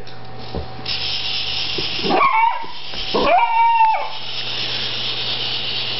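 A dog giving two drawn-out whining yowls about two and three seconds in, each rising quickly and then holding a high pitch, over a steady hiss.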